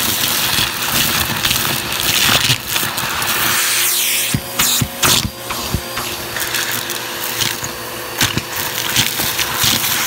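Vacuum cleaner running steadily while its bare hose end sucks up small hard debris such as pebbles, coins and bits of plastic and metal. The pieces rattle up the hose in many sharp clicks over the motor's hum.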